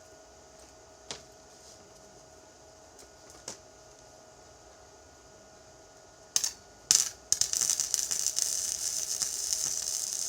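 TIG welding arc: two brief strikes, then a steady crackling hiss for about three seconds as a bead is laid, cutting off at the end.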